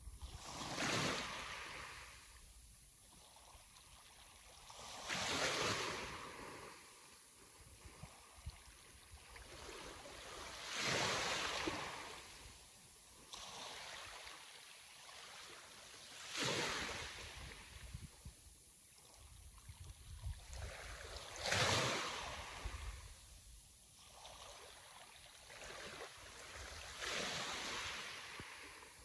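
Sea waves breaking and washing in, six surges in all, one about every five to six seconds, each swelling into a rush and then fading.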